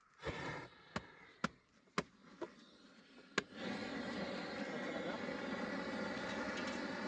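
Several sharp clicks, then a gas torch burner fed from a gas cylinder lights about three and a half seconds in and keeps up a steady roar, as used to heat-weld bitumen insulation membrane.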